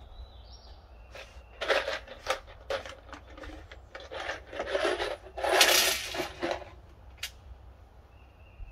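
Clicks, clinks and rattles of small hard objects being handled, in a run of separate strokes that thicken into a dense rattle about five to six and a half seconds in. Faint bird chirps around the edges.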